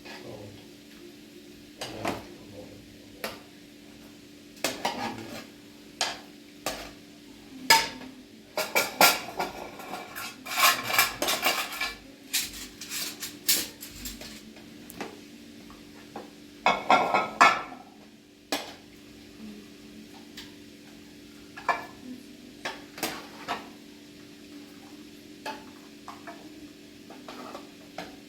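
Scattered knocks and clinks of hard objects being handled, with busier clattering about a third of the way in and again past halfway, over a steady low hum.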